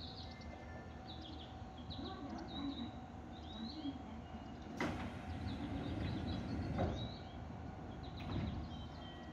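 Seibu 4000 series train's sliding doors closing at the platform, with a sharp knock about five seconds in and another near seven seconds. Small birds chirp throughout, and a steady hum runs beneath.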